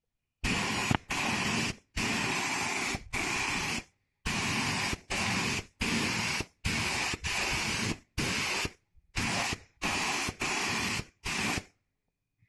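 Aerosol spray paint can hissing in over a dozen short bursts, each starting and stopping sharply, as paint is sprayed onto a car's sill and door pillar.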